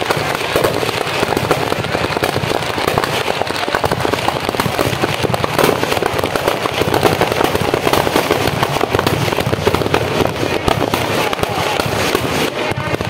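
Firecrackers packed inside a burning Ravan effigy going off in a rapid, continuous crackle of pops and bangs.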